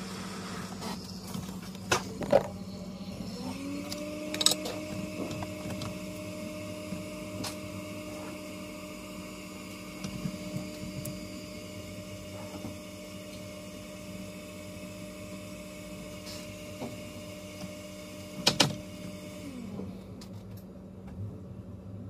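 A steady electrical hum, joined about three seconds in by a motor-like tone that rises, holds steady and stops near the end, with a few sharp clicks scattered through it.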